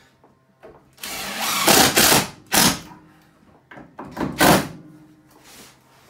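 Cordless drill whirring as it drives screws, in three runs: a long one about a second in, a short one just after, and another about four seconds in.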